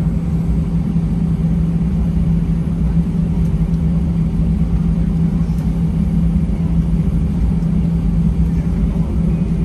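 Airbus A320-200 cabin noise on the ground after landing: a steady low rumble with a constant hum from the engines idling and the air conditioning.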